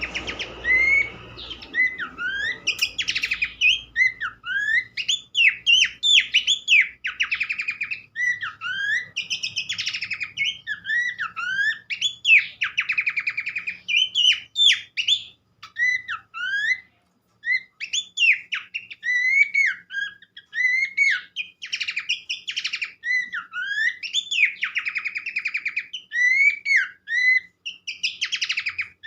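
Pelanduk semak (Horsfield's babbler) song: a dense, continuous run of quick sweeping whistled notes and chirps mixed with short buzzy rattles, pausing briefly about halfway through.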